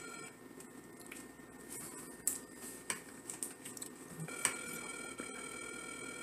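Telephone ringback tone heard over a phone's speakerphone while the call rings unanswered. The tone stops a moment in and rings again about four and a half seconds in, with a few light clicks and taps from the phone being handled in the gap.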